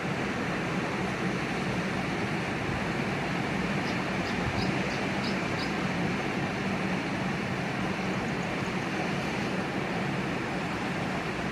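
Steady roar of sea surf, an even rushing wash with a low rumble underneath. A few faint, short high chirps come about four to six seconds in.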